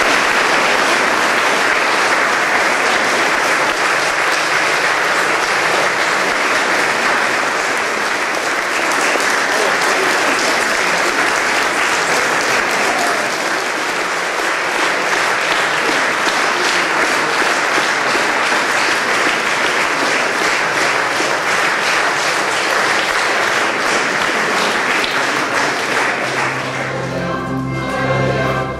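A church congregation applauding steadily and at length. Near the end the applause dies down and a choir starts singing with musical accompaniment.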